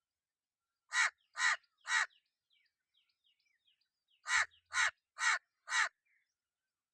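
Crow cawing: a series of three harsh caws about half a second apart, then after a pause of about two seconds a second series of four caws.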